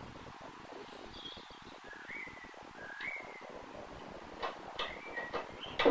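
A small bird chirping: a few short curling chirps about a second apart. Near the end come several sharp clicks, the last one the loudest.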